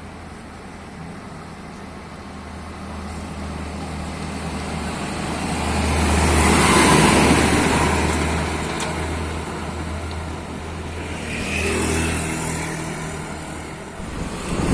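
Heavy diesel truck engine running with a steady low drone while a vehicle passes close by. The noise swells to a peak about halfway through and fades, then swells a little again near the end.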